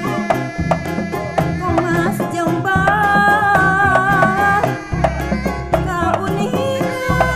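Live Sundanese terbang music: frame drums struck in a steady rhythm, with singing over them and one note held with a waver from about three to four and a half seconds in.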